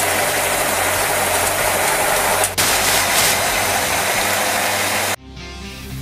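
Self-propelled berry harvester running: a loud, steady mechanical hiss of the machine and its conveyor, with a short break about two and a half seconds in. It cuts off sharply about five seconds in, and a short musical logo sting begins.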